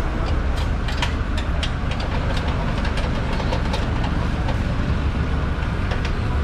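Metal clicks and clanks of a steel wheel clamp being fitted onto a car's front wheel, thick in the first few seconds and thinning out after, over the steady low rumble of an idling engine.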